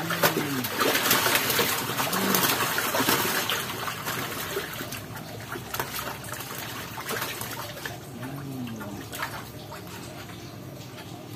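Water splashing and sloshing as a hooked catfish thrashes at the surface while it is landed. The splashing is heaviest in the first few seconds and dies down after that.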